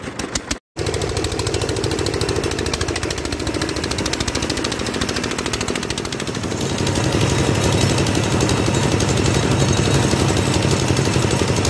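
A small stationary engine runs a belt-driven cotton gin, which separates cotton lint from the seed: a steady, rapid mechanical clatter. It drops out for a moment just after the start and gets louder about halfway through.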